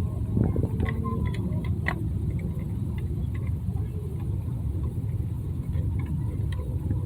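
Small clicks and taps of a hot wire being worked into the line terminal of a GFCI outlet, several close together in the first two seconds and a few more later, over a steady low rumble.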